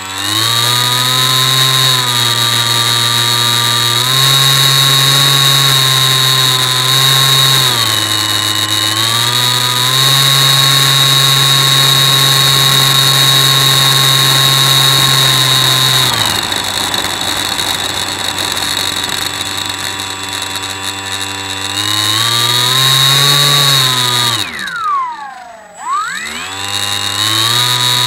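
Electric motor and propeller of a Bixler 3 RC plane whining at high throttle. It steps between a few steady speeds and drops to a lower speed in the middle. Near the end the throttle is cut and opened again twice, so the pitch sweeps sharply down and back up.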